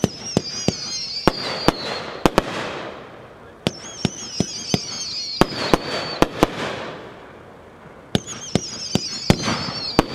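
Phantom End of the Road multi-shot fireworks cake firing in three volleys about four seconds apart. Each volley has a wavering whistle that falls slightly in pitch, a string of sharp bangs and a hissing rush that fades.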